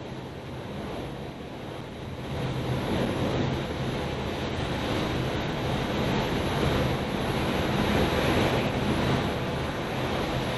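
Steady rushing noise of a Soyuz-ST-A rocket's kerosene and liquid-oxygen first- and second-stage engines firing during ascent, growing a little louder about two seconds in.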